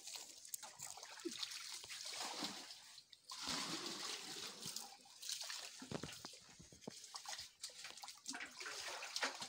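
Shallow stream water splashing and sloshing as large metal basins are dipped and scooped through it, with trickling as water pours off the basins.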